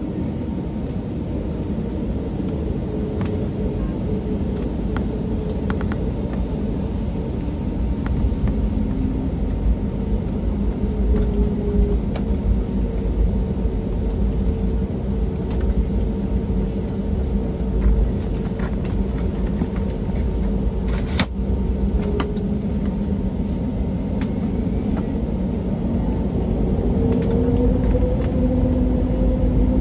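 Airbus A320neo's Pratt & Whitney geared turbofan engines heard from inside the cabin, running at low power while the jet taxis: a steady hum of two engine tones over a low rumble. Near the end the tones rise slightly and the sound grows louder as thrust comes up.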